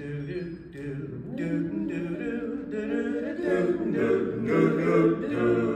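Male vocal quartet singing a cappella in harmony, several voices sounding together and growing louder.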